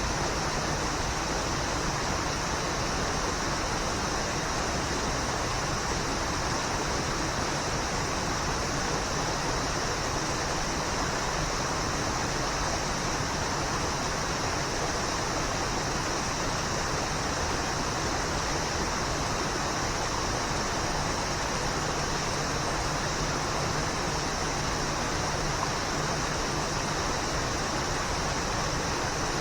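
Waterfall: a steady, unbroken rush of falling water, with a bright hiss in the high range.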